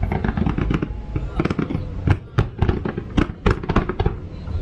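Aerial fireworks bursting in quick, irregular succession: a dozen or so sharp bangs and cracks over a continuous low rumble.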